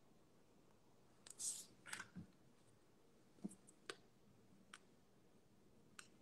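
Near silence: quiet small-room tone, broken by a few faint clicks and a couple of brief soft hisses in the first two seconds.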